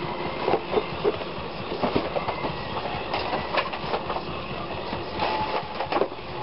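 A fast jumble of rustling and knocking from cardboard boxes and tubes of a homemade costume clattering together and falling, sped up, with many quick knocks throughout.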